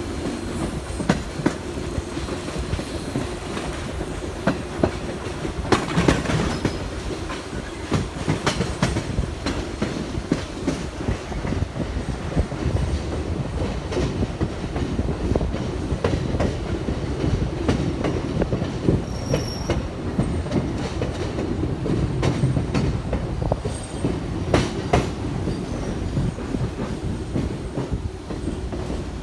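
Train wheels running over rail joints: a steady low rumble with many irregular clicks and knocks, and a few short high squeals about two-thirds of the way through.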